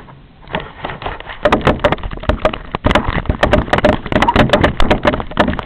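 Loud, irregular knocking, scraping and rustling right at the camera's microphone as something is pushed against and over the camera, starting about half a second in and going on as a dense, rapid run of knocks.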